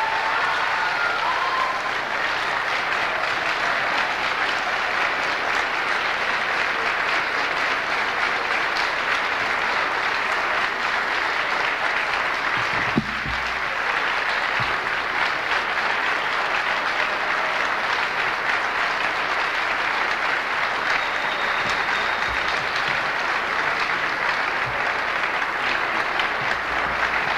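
A large audience applauding, a steady, unbroken ovation, with a single thump about halfway through.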